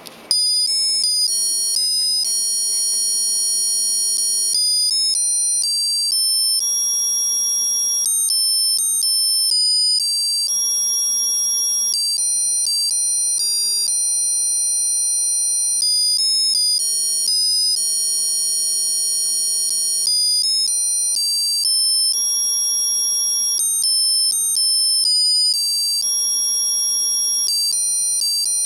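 A 1995 Armitron Tasmanian Devil musical wristwatch plays a tune through its tiny buzzer. The tune is a thin, high, electronic melody of single beeping notes, one after another. It starts abruptly just after the beginning.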